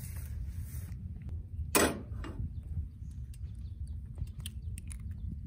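Cooking gear on a camping gas stove: one loud knock about two seconds in, then a few light clicks and taps as an egg is cracked over bread in an open hot sandwich maker, over a steady low rumble.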